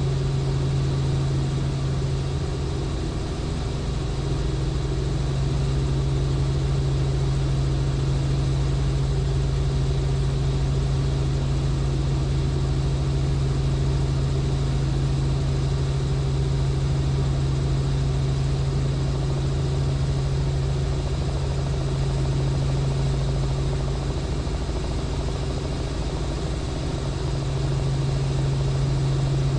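Cabin drone of a Robinson R44 helicopter in flight: its piston engine and rotors give a steady low hum, easing off slightly twice.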